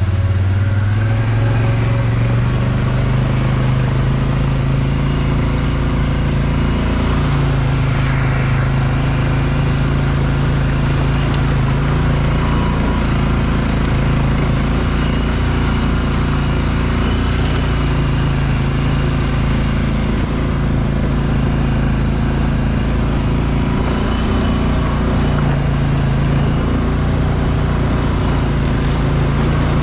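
ATV engine running under way at a fairly steady speed, its pitch rising and dipping slightly a few times.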